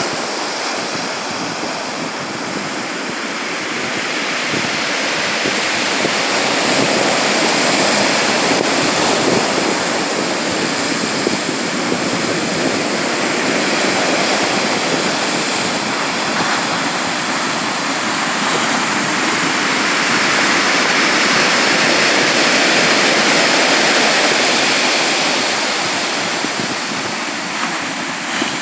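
Sea surf washing on the shore: a continuous rush of breaking waves that slowly swells and eases every several seconds.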